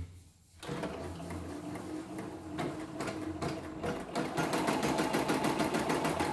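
CNY E960 computerized embroidery machine starting to stitch a design after a short click. Its needle runs in uneven strokes at first, then settles into a louder, fast, even stitching rhythm about four seconds in.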